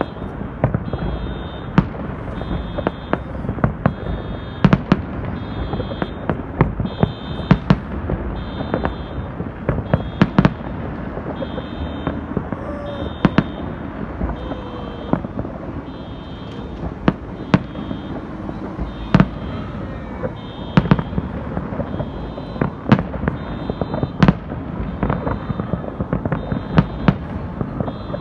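Aerial fireworks display: shells bursting in quick succession, with many sharp bangs at uneven intervals, a few seconds apart and sometimes closer, over a continuous low rumble of distant explosions.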